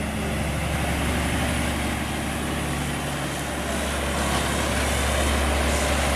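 Heavy diesel tractor-trailer with a loaded flatbed trailer climbing a mountain grade past the listener: a steady low engine drone under tyre and road noise, growing a little louder near the end.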